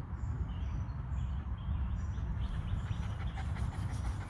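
Welsh terrier panting, out of breath from running fetch, over a steady low rumble.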